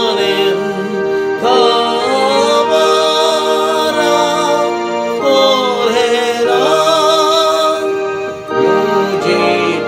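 A hymn sung to keyboard accompaniment: a voice with vibrato carries the melody over held chords, in phrases a few seconds long.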